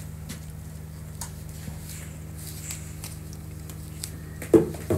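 Steady low room hum with a few faint soft taps; near the end, a short loud voice sound.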